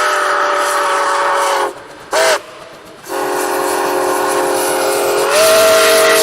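Locomotive air horn sounding a chord of several notes in blasts: a long blast that stops about a second and a half in, a short toot just after, then another long blast that rises slightly in pitch and gets louder near the end.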